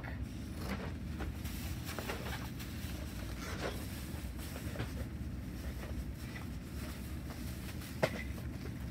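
Faint scattered rustles and light knocks of things being handled, including a white plastic bag, over a steady low hum, with one sharper click about eight seconds in.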